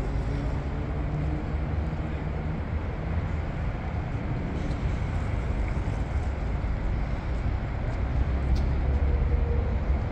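Steady city ambience: a continuous low rumble of road traffic around a busy station plaza, with a low hum that fades after about two seconds.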